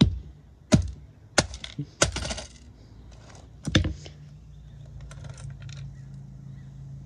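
A rubber mallet strikes the plastic casing of a boombox CD player about five times in the first four seconds, each blow a sharp crack with rattling plastic. After the last blow a low steady hum continues.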